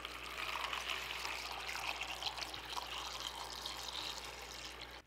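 White vinegar pouring in a steady stream from a plastic gallon jug into a plastic tub, splashing onto a rusty steel hammerhead as the tub fills.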